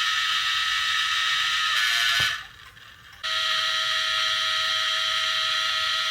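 Quartz clock movement's stepper-motor coil driven fast by a 555 oscillator, giving a steady, high buzz. About two seconds in it stops with a click for about a second, then starts again.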